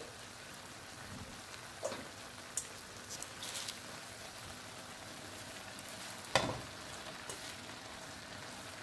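Chopped collard greens cooking in vegetable broth in a skillet: a steady low sizzle, with a few light knocks and one sharp knock about six seconds in.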